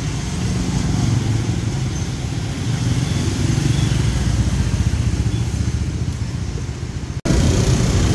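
Street traffic, mostly motorbike engines running and passing. About seven seconds in it changes abruptly to a louder engine rumble from riding a motor scooter in traffic.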